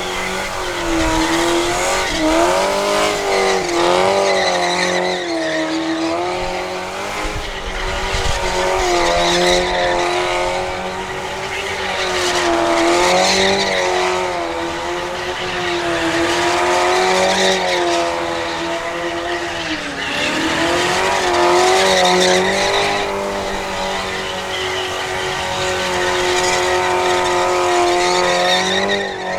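Car engine held at high revs in a long burnout, its pitch wavering up and down with short dips as the throttle is feathered, over the steady hiss and squeal of spinning tyres.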